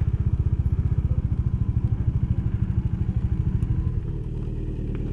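Bajaj Dominar motorcycle's single-cylinder engine idling with a fast, even pulse while stopped in traffic. About four seconds in, the pulse smooths out and gets a little quieter.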